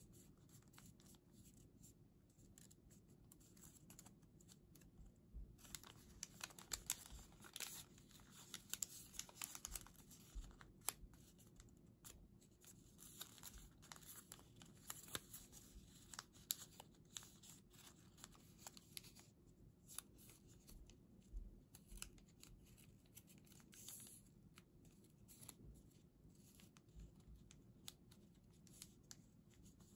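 Origami paper being folded and creased by hand: faint rustling and crinkling with many small crisp clicks as folds are pressed, busiest in the first half.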